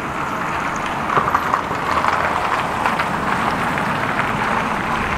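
City street ambience: steady road traffic noise, with a few faint taps about a second or two in.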